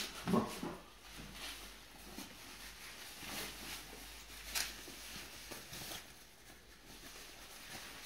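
A soft plastic protective bag rustling and crinkling in short, scattered bursts as it is handled and pulled off a guitar.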